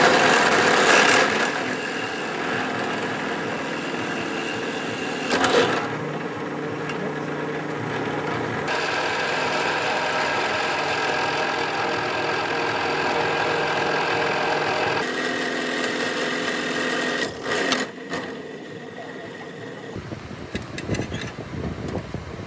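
Bench drill press running with a steady motor hum while the bit bores into wood, with short loud bursts of cutting at the start and again about five seconds in. About three quarters of the way through the motor stops, and light clicks follow as the chuck is handled.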